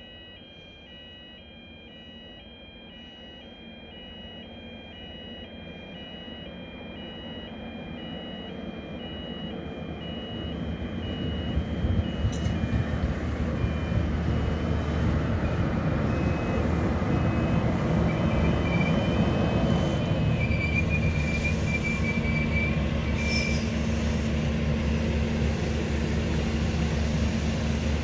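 Level-crossing warning bells ringing in an even two-tone alternation as a train approaches, its rumble growing louder, the bells stopping about twelve seconds in. The train then passes with a steady low engine drone and the rumble of wheels on rail, with a brief faint wheel squeal about twenty seconds in.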